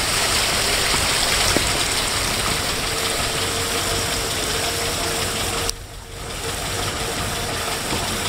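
Steady road noise heard from inside a moving car: the engine running and the tyres hissing over a wet, flooded road. The noise drops out sharply about six seconds in and then comes back.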